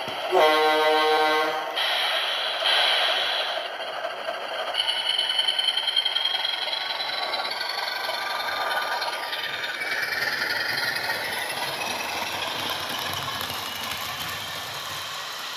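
An HO-scale model diesel locomotive with a DCC sound decoder: a horn blast from the decoder's speaker about half a second in, lasting over a second. Then the locomotive runs fast on the track, its small motors whining, with a high tone that rises in pitch for a few seconds, over a steady clatter.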